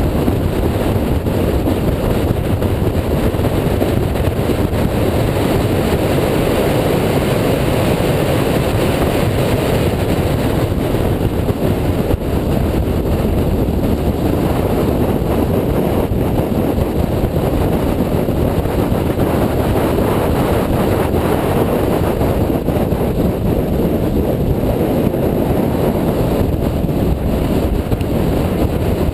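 2004 Mini Cooper S with its supercharged 1.6-litre four-cylinder engine, driven at speed: a steady, loud mix of engine and wind rush on the microphone, with no distinct separate events.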